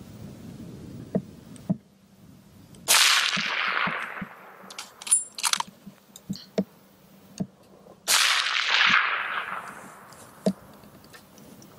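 Two rifle shots about five seconds apart, each a sharp crack followed by an echo that dies away over a second or so, with a few light clicks between them.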